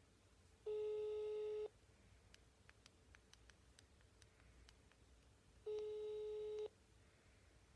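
Telephone ringback tone from a smartphone's loudspeaker: a steady beep about a second long, heard twice, five seconds apart. An outgoing call is ringing and has not yet been answered.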